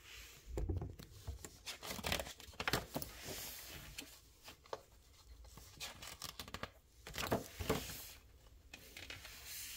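Glossy magazine pages being handled and turned, paper rustling and crinkling in irregular swishes, with several louder page turns.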